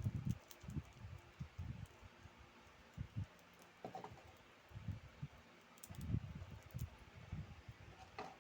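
Irregular soft knocks and taps with a few sharp clicks, coming in small clusters.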